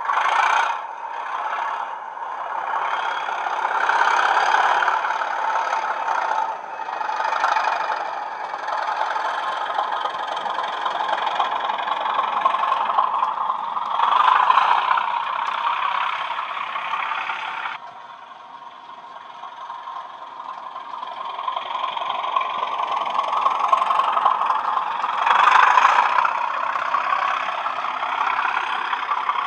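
Recorded English Electric Class 37 diesel engine sound from Coastal DCC's Class 37/0 sound file, played by a DCC sound decoder through two small speakers in a Bachmann OO-gauge Class 37 model, running under power as it hauls coaches, mixed with the model's running noise on the track. The engine note rises and falls several times and drops off sharply about two-thirds of the way through before building again; there is little deep bass.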